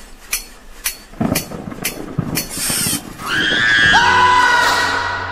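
Screamer jump-scare sound effect. A loud, piercing, wavering shriek breaks in about three seconds in and fades near the end. Before it come a run of sharp clicks about two a second and a burst of rough noise.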